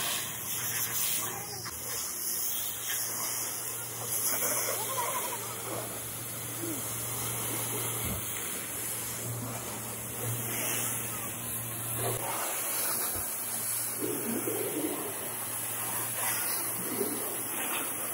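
Pressure-washer jet hissing steadily as it rinses soap off a car's bodywork and engine bay, with a low steady hum underneath that stops about twelve seconds in.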